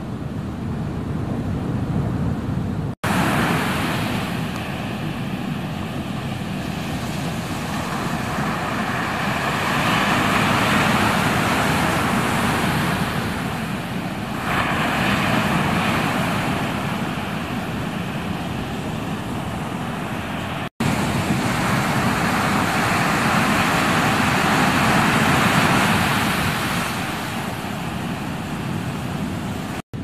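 Ocean waves breaking, a continuous rush of surf that swells and eases in several long surges. The sound cuts off abruptly for an instant twice, about three seconds in and again about two-thirds of the way through.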